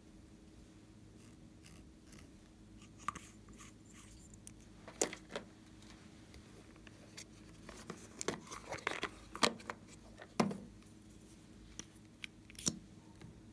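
Small plastic cosmetic containers, a liquid-lipstick tube and a compact, being handled, giving scattered clicks and taps that cluster about two-thirds of the way through. A faint steady hum runs underneath.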